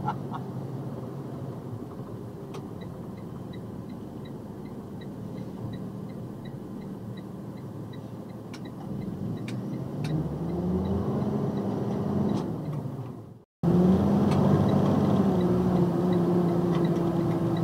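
Box truck's engine running, heard from inside the cab, with a turn-signal clicker ticking about twice a second. Later the engine pitch rises and falls as it pulls away. After a brief dropout the engine runs louder at a steady pitch.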